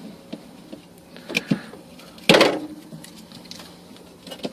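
Sharp knocks and clatter of a loose part being handled and worked free inside a new dorm fridge, a few light clicks and one louder clack a little over two seconds in.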